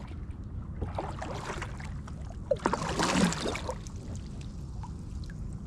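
A kayak moving on the water: a steady low rumble with scattered knocks, and a louder rushing swell about three seconds in.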